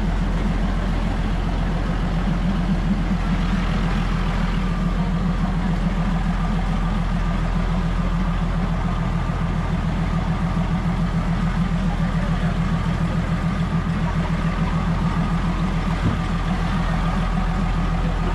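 A heavy engine idling steadily, a low even hum that does not rise or fall.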